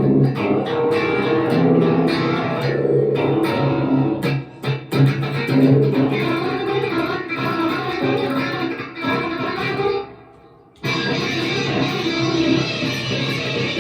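Guitar playing a run of picked notes. It drops out briefly about four and a half seconds in, nearly stops for a moment just after ten seconds, then resumes.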